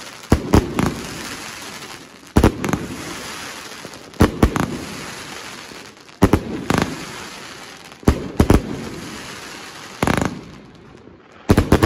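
Triplex XB4100 'Air Force One' fireworks cake firing its shots about every two seconds. Each shot is a sharp bang followed by a fading tail of noise.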